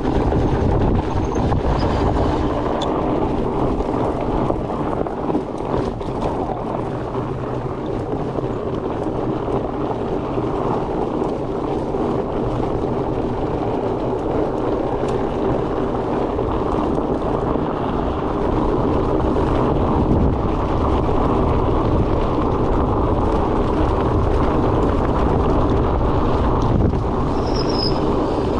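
Steady wind rush on the microphone over the rolling rumble of a fat bike's tyres on the trail, with a faint steady hum running through it.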